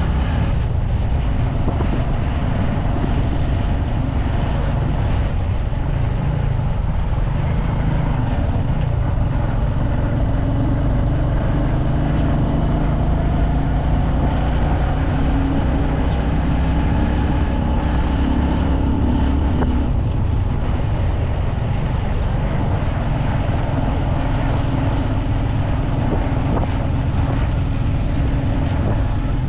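Motor vehicle running: a steady engine drone with road noise, its pitch shifting a little now and then.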